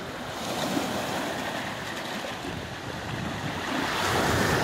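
Wind rushing across the microphone over lake waves washing against boulders, growing louder near the end.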